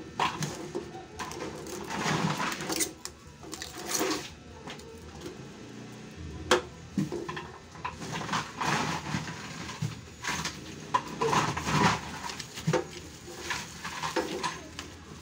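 Handling noise from a braided rubber gas hose and a gas regulator in a clear plastic bag: irregular rustling and crinkling with scattered clicks and knocks, one sharp click about six and a half seconds in.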